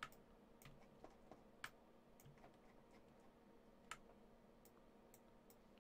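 Faint computer mouse clicks, about ten scattered sharp clicks, over a faint steady hum.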